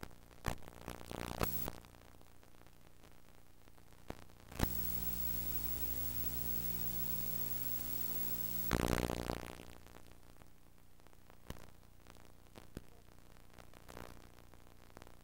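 VCR starting playback of a VHS tape. There are scattered clicks and crackles, then a steady electrical hum-buzz for about four seconds while the screen is blue. A short burst of static comes about nine seconds in, and faint tape hiss with occasional clicks follows.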